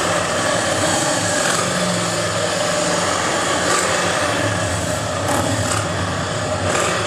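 Steady engine noise: Harley-Davidson motorcycles running close by with a low, even rumble, and the 2013 Formula 1 car's V8 faintly heard far off on the circuit.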